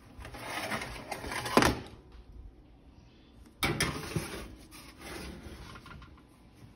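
Metal baking tray sliding and scraping onto an oven rack, with a sharp clank about one and a half seconds in and a second sudden scrape and knock a little past the middle.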